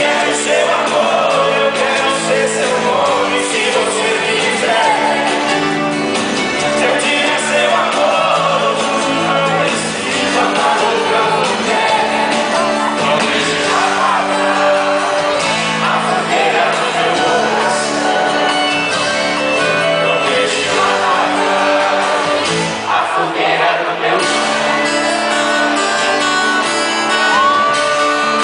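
Live concert music: a sertanejo duo singing a song with their band in a large hall, with audience shouts and whoops mixed in.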